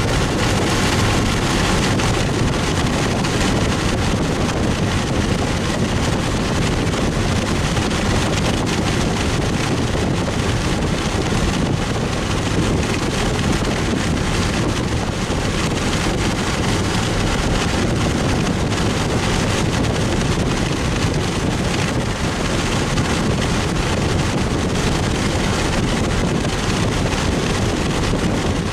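Steady rushing wind and road noise of a car driving at speed.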